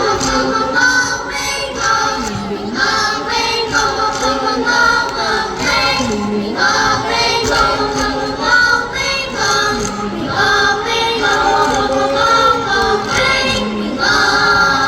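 Children's choir singing in unison, with continuous sung phrases throughout.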